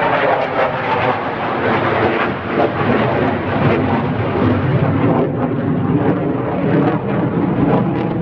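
Fixed-wing airplane flying overhead, its engine a loud, steady rushing noise.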